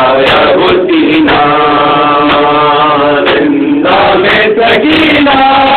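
Several men chanting a noha, a Shia lament, in unison into a microphone, with long drawn-out notes; one note is held for about two seconds in the middle before a short break.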